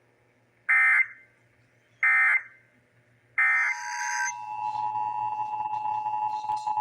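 Emergency Alert System end-of-message data bursts: three short, harsh digital squawks about a second apart. From about halfway, the steady two-tone EAS attention signal (853 and 960 Hz together) begins and holds.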